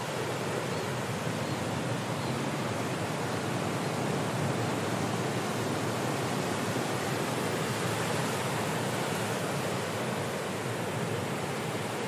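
Powerful ocean surf breaking and washing continuously: a dense, steady rush that swells a little in the middle.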